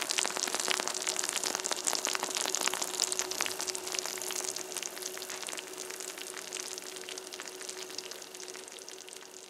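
Hot, cheesy filling of a just-baked chicken pot pie sizzling and crackling with many small pops, dying down gradually. A faint steady hum runs underneath.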